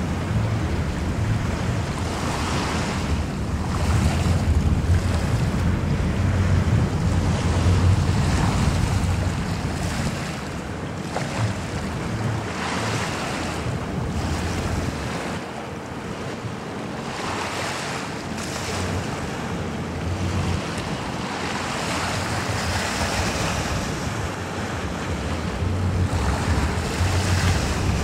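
Wind buffeting the microphone over a steady wash of water, in uneven gusts; the low rumble of the wind eases off about halfway through and returns near the end.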